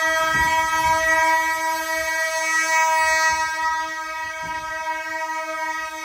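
Simplex 4903-9104 fire alarm horns sounding a steady, continuous horn tone in full alarm.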